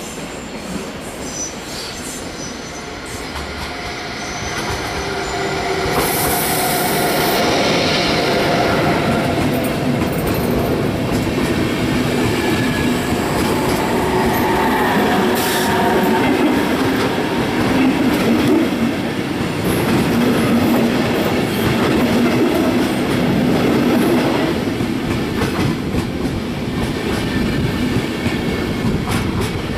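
A Class 101 electric locomotive hauling Intercity coaches rolls past over curved track and points. It grows louder over the first several seconds as it draws near, then holds steady, with wheel flanges squealing on the curves and clicks as the wheels cross the switches. A short hiss comes about six seconds in.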